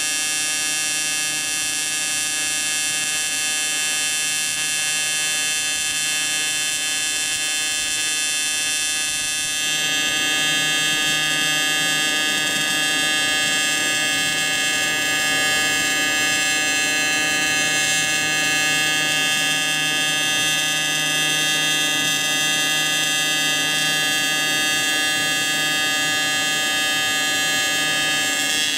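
AC TIG welding arc on a cast aluminum engine case, a steady electric buzz whose tone shifts about ten seconds in and that cuts off at the end. The puddle is being remelted to float impurities and pores out of the casting.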